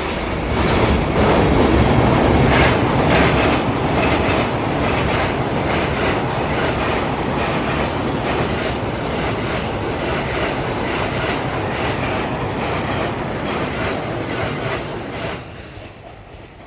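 JR electric commuter train passing close by, its wheels clacking over the rail joints with a faint, high wheel squeal now and then. The noise builds just after the start and falls away about a second before the end.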